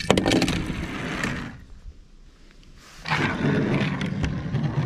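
Die-cast toy car clicking onto a plastic board and rolling down it with a rumble for about a second and a half, then rolling again as it is pushed by hand, about three seconds in.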